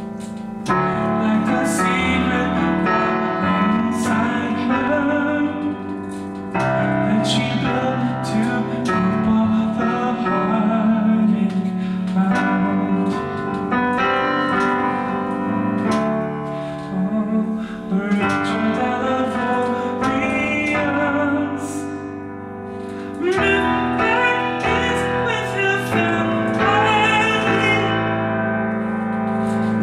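Digital piano playing a chord accompaniment in G major, with a woman's singing voice over it.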